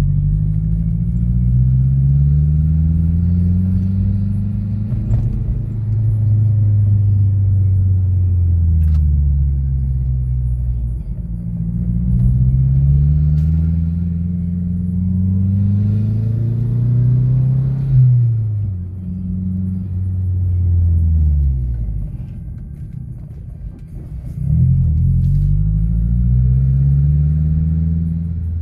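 A Mazdaspeed6 turbocharged 2.3-litre four-cylinder engine with a full 3-inch exhaust and Apexi N1 muffler, heard from inside the car as it accelerates through the gears. The engine note climbs and then drops back at each shift, several times over. About three-quarters of the way through it falls away and quietens, then climbs again near the end.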